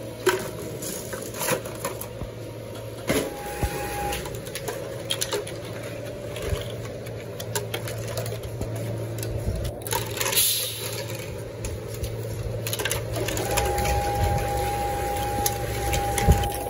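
Hollow plastic broom handles clattering and knocking together as they are handled and dropped into a sack, a string of irregular sharp clicks. Underneath runs a steady low hum, joined briefly by a high steady tone and again for the last few seconds.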